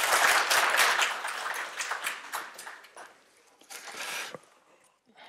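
Audience applauding, the clapping thinning out into a few scattered claps and dying away about three seconds in. A short burst of rustling follows about a second later.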